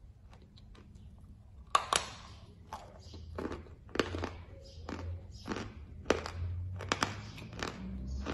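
A person bites into a white chalk tile with a sharp crack a little under two seconds in, then chews the chalk with irregular crunches, about two a second.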